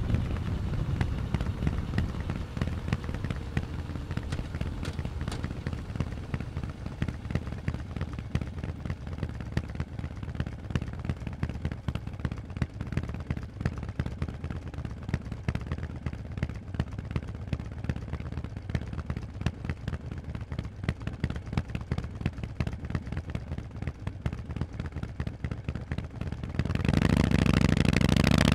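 Harley-Davidson Forty-Eight's air-cooled V-twin through Vance & Hines exhausts, running at low revs as a steady string of sharp exhaust pulses. Near the end the throttle opens and it becomes suddenly much louder.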